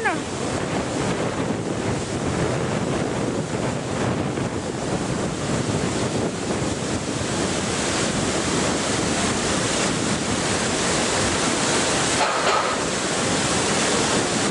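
River water rushing steadily over rocks and rapids: a constant, even rush of flowing water.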